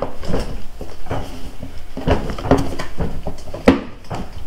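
Black plastic divider knocking and clicking against the walls and slots of a Milwaukee Packout toolbox drawer as it is handled and dropped into place: a string of irregular knocks, the sharpest near the end.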